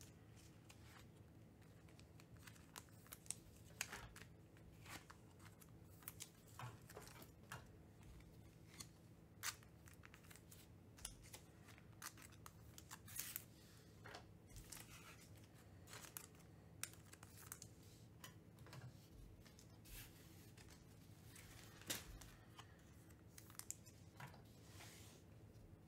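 Faint, intermittent crinkling and tearing of trading-card packaging as packs are opened, with short scratchy crackles and clicks scattered throughout, over a low steady hum.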